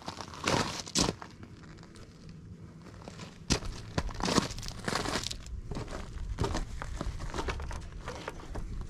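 Crunching and crinkling work noise on gravel, with several sharp knocks, the loudest about half a second, one second and three and a half seconds in; near the end a shop rag rubs over the hands.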